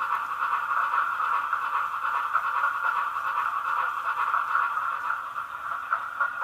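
Youchoos Castle-class sound decoder playing through a tiny sugar cube speaker: a model steam locomotive's running sound at speed, with the rail clack of wheels over rail joints. The sound is thin, narrow and hissy, as a small speaker makes it.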